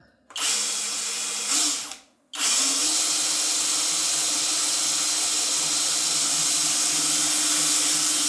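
Hoto cordless drill running, boring into the solid plastic front panel of a PC case. It gives a short run of about two seconds, stops briefly, then starts again in a long steady run.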